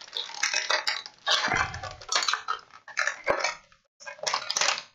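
Clear plastic packaging crinkling and rustling in irregular bursts, with small clicks of hard plastic, as a toy figure is worked out of its bag.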